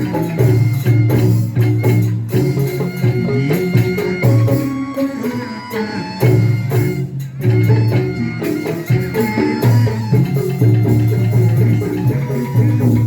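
Instrumental passage of a live band: drums and shakers over a heavy, pulsing bass line, with held melody notes above.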